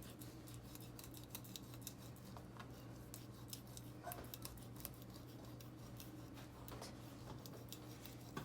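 Knife cutting through a fish while filleting it, making faint, irregular clicks and crackles as the blade works through the flesh, over a steady low hum.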